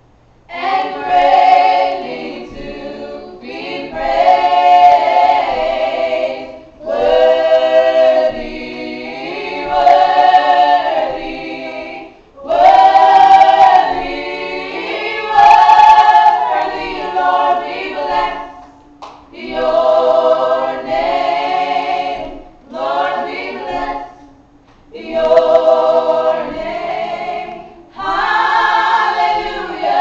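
Small group of women singing a gospel song unaccompanied, in phrases a few seconds long with short breaks between them.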